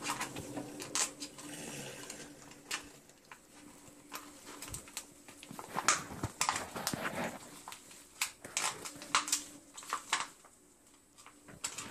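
Scattered light clicks and taps of metal tweezers knocking against a glass vase while plant roots are pushed through its neck.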